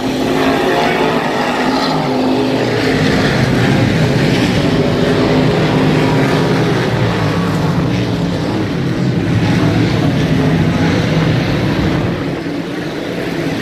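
Engines of a field of dirt-track sportsman modified race cars running together at racing speed, a steady loud drone of several engines whose pitch shifts as the pack goes around. It eases slightly near the end.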